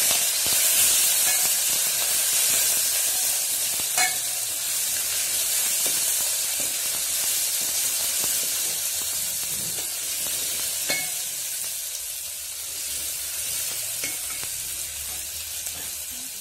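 Garlic and green chilli paste sizzling in hot oil with mustard seeds, stirred with a steel ladle that clinks against the pot a few times. The sizzle slowly dies down toward the end.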